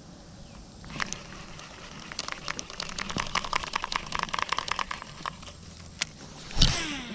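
Lew's Mach Crush baitcasting reel being cranked: a fast run of clicks lasting about three seconds. Near the end the rod is cast with a sudden loud swish, and the spool's whine drops in pitch as it pays out line.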